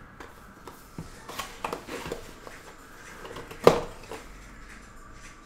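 Cardboard trading-card box handled and a clear plastic card case lifted out of it: light rustles and small taps, with one sharper click about two-thirds of the way through.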